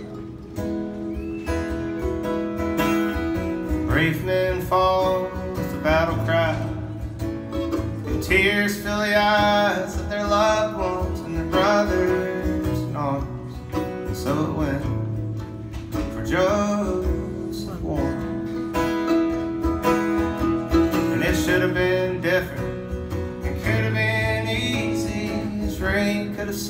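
Acoustic guitar and mandolin playing a slow folk song together, with sung vocals wavering over the strummed chords and picked mandolin notes.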